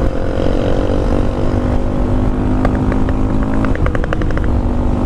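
Honda Grom's single-cylinder engine with a Yoshimura exhaust running steadily at cruising speed, heard through a helmet-mounted microphone with wind rumble. The engine note drops a little past the middle, and a quick run of light ticks comes a few seconds in.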